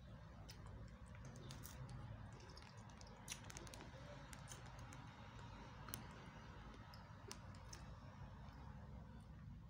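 Near silence over a low steady hum, with faint scattered clicks from eating: a crunchy kaak biscuit dipped in a ceramic mug of tea and chewed.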